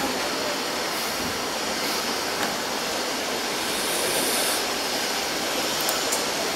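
Steady, even hiss of room background noise, with a few faint clicks.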